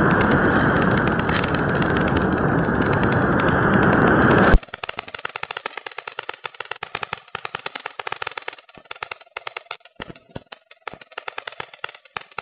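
Electric motor and propeller of an RC electric glider running under power, picked up by a small onboard keyfob camera's microphone as a loud, dense noise that cuts off abruptly about four and a half seconds in when the motor stops. After that, irregular crackling clicks and airflow rustle on the camera as the model glides.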